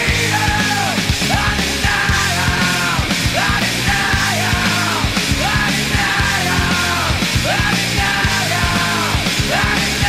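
Loud rock music: a singing voice over a steady drum beat and bass.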